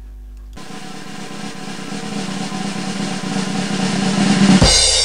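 Outro music: a snare drum roll building steadily in loudness for about four seconds, breaking into a different, brighter sound near the end.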